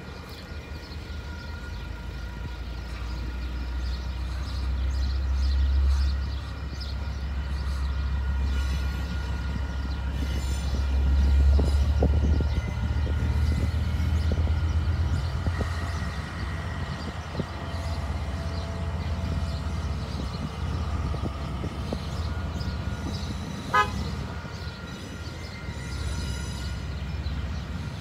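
KiwiRail DL-class diesel-electric locomotive (DL 9792) passing a level crossing with its engine running in a deep rumble that builds and peaks about halfway through, then loaded log wagons rolling past. A horn toot is heard.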